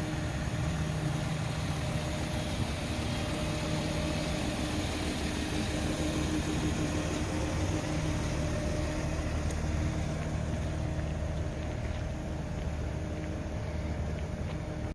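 Car engine idling steadily, a constant low hum with no change in pitch.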